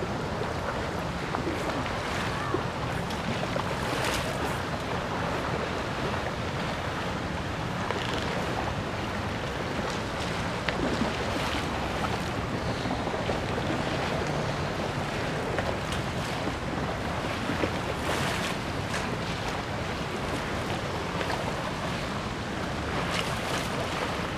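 Wind blowing across the microphone with a steady low rumble and a few stronger gusts, over the wash of river water lapping onto a flooded walkway.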